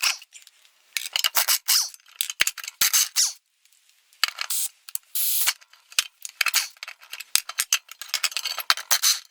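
Cordless impact wrench (rattle gun) running in repeated short rattling bursts as it undoes the nuts holding the lawnmower blades, with sharp clicks between the bursts.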